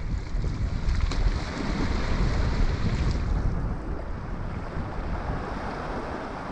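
Wind buffeting the microphone in a steady low rumble over the wash of waves against the rocks below, easing a little about halfway through. Two faint clicks come about a second and about three seconds in.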